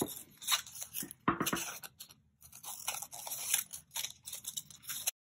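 Scissors cutting down the middle of a twisted paper strip: a run of irregular crisp snips with paper rustling. It cuts off abruptly near the end.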